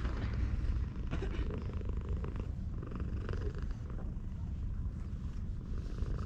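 Cat purring steadily as its head and neck are stroked, with light rustling of fur under the hand.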